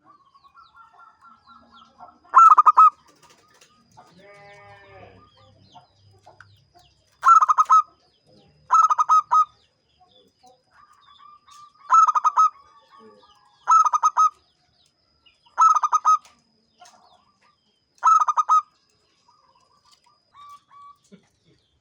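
Zebra dove (perkutut) cooing: about seven loud, rapid staccato phrases repeated every couple of seconds, with softer cooing between them. A different, lower call with several stacked pitches sounds briefly about four seconds in.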